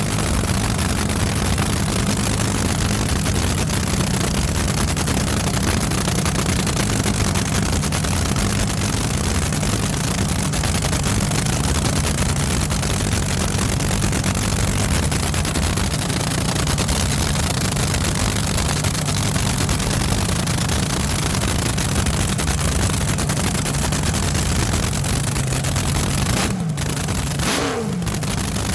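An engine running steadily and loudly, its pitch gliding down near the end.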